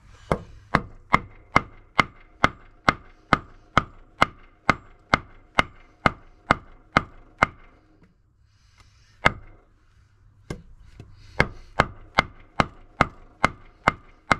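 Hammer blows on metal at about two a second, each with a short ringing tail. Near the middle they stop for a few seconds with only two single blows, then start again. The metal being struck is the power steering belt adjuster, whose pivot is seized with rust.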